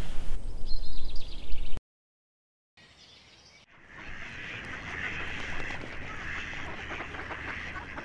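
Outdoor ambience with a series of high bird chirps, cut off about two seconds in. After a short silence, a steady chatter of many ducks quacking begins about four seconds in.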